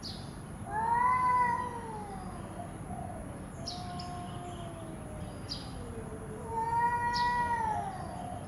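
Cat meowing: two long drawn-out meows, one about a second in and another near the end, with a quieter meow between them.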